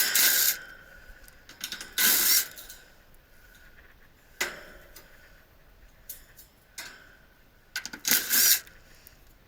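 A handful of short mechanical rattles and clicks, each about half a second long and a couple of seconds apart, two of them close together near the end.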